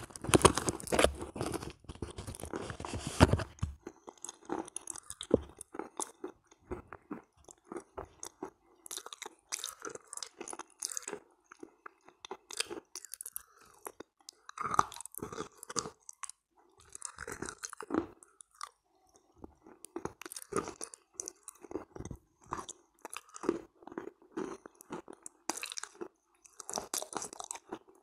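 Close-miked wet chewing and crunching of soft clay halva mixed with kaolin cream, in irregular bites with moist mouth sounds. It opens with a louder stretch of fingers digging and squishing through the cream in a plastic tub.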